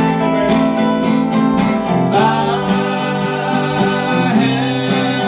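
Acoustic guitar strummed in a steady rhythm under a long held sung note, which slides up to a new pitch about two seconds in and sustains.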